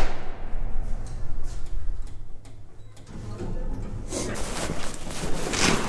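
A door being opened, a scraping rush starting about four seconds in and loudest near the end, over a low steady hum.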